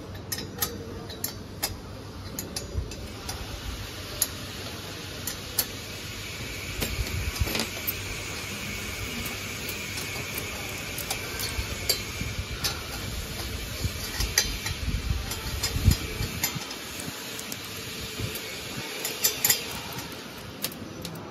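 Scattered metal clinks and scrapes of a hex key and stainless-steel hopper fittings being handled as mounting screws are tightened, over a steady background hiss.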